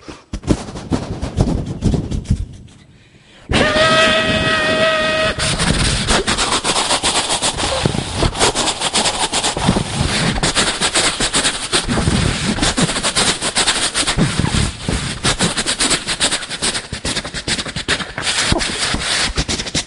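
A man's vocal imitation, by mouth alone, of a train crossing another train. It opens with a rhythmic chugging, then a train horn held for about two seconds, starting a few seconds in. After that comes a dense, fast clatter like wheels rattling over rail joints.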